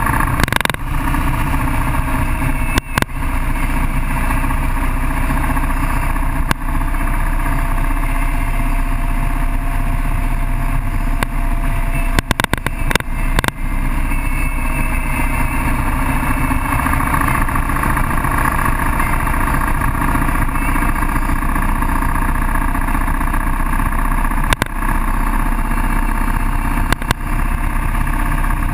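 Motorcycle engine running steadily at road speed, heard from the bike itself along with wind rushing over the microphone. A few brief knocks break through, twice close together about 12 to 13 seconds in.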